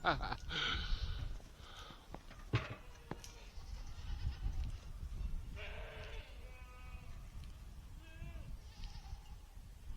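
Goats bleating several times in wavering, quavering calls, over a low rumble of wind on the microphone.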